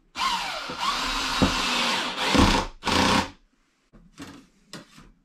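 Cordless drill running against pine wall panelling: one long run of about two and a half seconds, a short second burst, then a few brief, quieter trigger pulls near the end.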